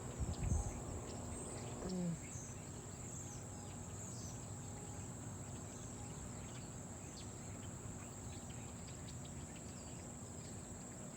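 Steady high-pitched chorus of crickets, with a brief low thump about half a second in.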